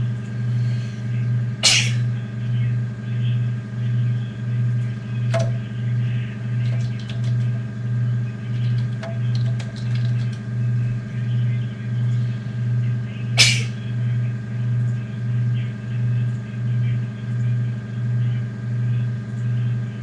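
A steady low electrical hum that swells and fades about one and a half times a second, with two sharp clicks, one near the start and one about two-thirds of the way through.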